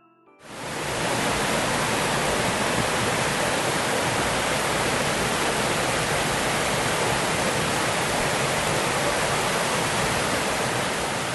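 Waterfall: steady, dense rushing of falling water, fading in within the first second.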